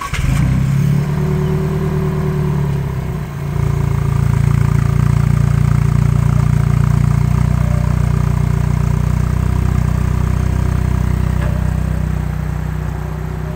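Alfa Romeo 4C's turbocharged four-cylinder engine idling steadily through its centre twin exhaust tips just after start-up. About three and a half seconds in, its note shifts and then holds steady, easing slightly near the end.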